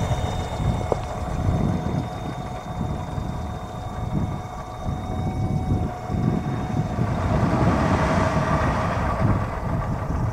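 Wind buffeting the microphone with a gusty low rumble. Near the end a car approaching on the snowy road brings a rising hiss of tyres.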